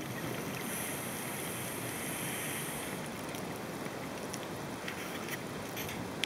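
Underwater ambience picked up by a submerged camera: a steady rushing water noise, with a brighter hiss in the first half and scattered faint clicks in the second half.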